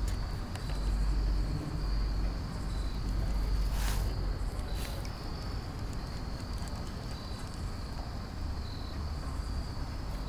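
A cricket trilling steadily at a high pitch over a constant low rumble, with two sharp clicks about four and five seconds in.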